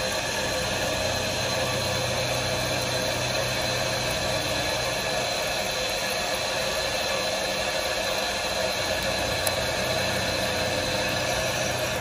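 Water rushing through the opened drain valve of a fire sprinkler riser, a steady hiss with a faint hum underneath, flowing water that is meant to trip the waterflow switch. It cuts off abruptly at the end.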